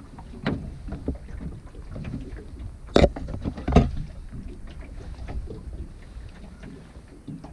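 Wind buffeting the microphone over water lapping at a small boat, with two sharp knocks a little under a second apart midway.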